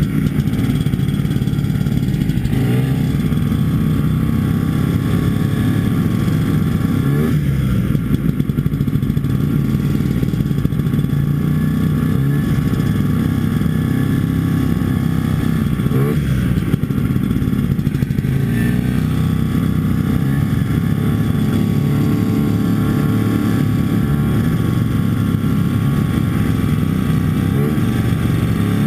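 Antique Ski-Doo snowmobile's two-stroke engine running steadily under way, with a few brief dips and rises in pitch as the throttle changes.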